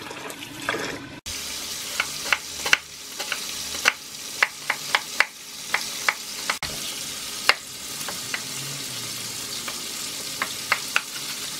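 Chef's knife chopping onion on a wooden cutting board: irregular sharp taps, a few a second, over a steady hiss. In the first second, tap water runs into a bowl of rice being washed by hand, then cuts off abruptly.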